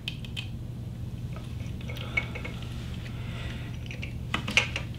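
Light clicks and rustles of hands handling a 3D printer extruder assembly while the thermistor probe and its wire are worked out of the hotend. The clicks are scattered, with a small cluster near the end, over a steady low hum.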